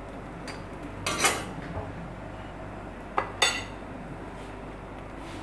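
Metal kitchenware clinking: a few sharp knocks, one about a second in and two close together a little after three seconds, over a faint steady background.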